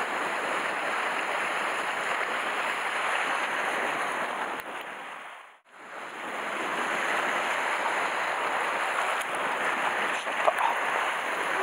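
Sea swell washing against the rocks of a rocky shore: a steady rushing that drops out briefly about halfway through.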